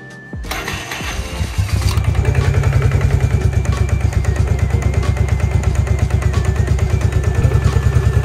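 Bombardier Quest 500 ATV's Rotax single-cylinder four-stroke engine catching about a second or two in, then running at idle with a steady rapid beat.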